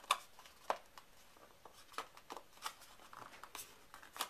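Hands handling a small boxed power supply and its packaging: a scatter of light, irregular clicks and taps, the sharpest right at the start.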